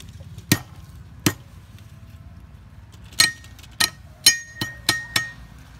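Kitchen knife chopping garlic cloves on a wooden chopping board: eight sharp knocks, two spread out at first, then six closer together from about three seconds in, some followed by a thin metallic ring.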